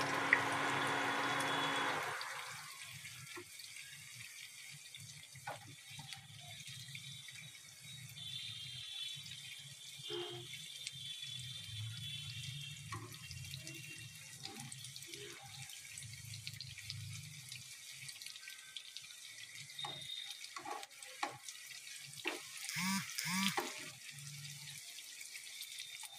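Hot oil sizzling steadily as karayappam balls and fritters deep-fry in a pan, with scattered light clicks and pops. It is louder for the first two seconds, and there are brighter knocks and clicks near the end as a utensil works in the pan.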